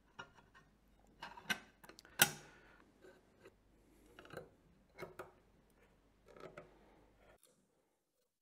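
Small metal clicks and taps as the top cover plate of a ZWO filter wheel is set in place and its tiny screws are driven in with a small screwdriver. They come at uneven intervals, the sharpest about two seconds in, and the sound cuts out to silence near the end.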